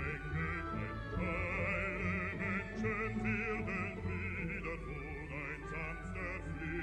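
Music: an operatic voice sings held notes with wide vibrato over steady low accompaniment.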